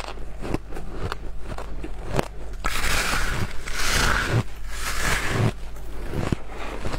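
Biting into and chewing a block of packed, coloured shaved ice: loud crunching from about three seconds in, easing off about a second before the end.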